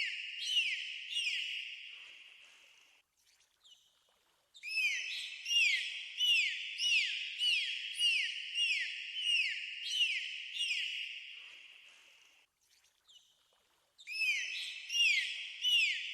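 Dolphin calls: short chirping whistles, each falling quickly in pitch, repeated about twice a second in bursts of several seconds with brief pauses between.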